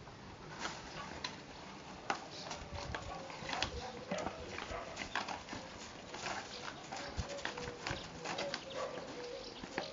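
Two puppies scuffling and tugging over a plastic clog on gravel: irregular crunches, clicks and scrapes of paws and shoe on the stones. A faint steady tone joins about four seconds in.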